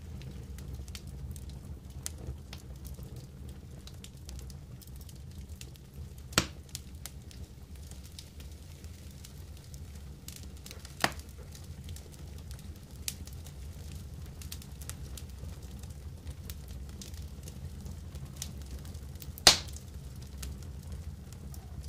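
Campfire coals crackling, with many faint scattered clicks over a steady low rumble. Three much louder sharp clicks stand out, spread through the stretch.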